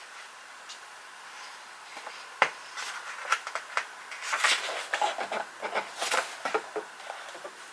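Typing on a Hansung GK898B keyboard with electrostatic capacitive (Topre-style) switches. After a couple of seconds comes one heavier keystroke, then a quick run of key presses that thins out near the end.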